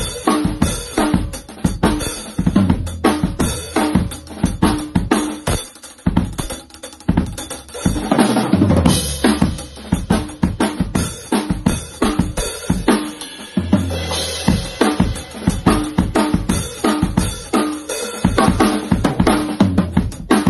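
Acoustic drum kit played solo in fast grooves and fills: DW Collector's Series drums with a Craviotto walnut snare, kick drum and toms, under Zildjian K cymbals. Brighter cymbal washes come in about eight seconds in and again around fourteen seconds.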